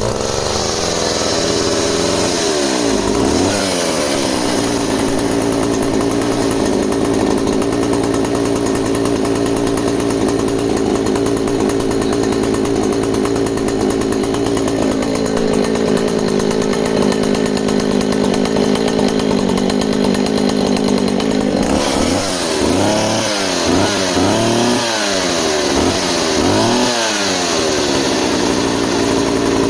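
1967 Jobu two-stroke chainsaw (50 mm bore, 35 mm stroke) running steadily, then revved up and down several times from about two-thirds of the way through. Despite its 55 years it starts within a pull or two and runs cleanly.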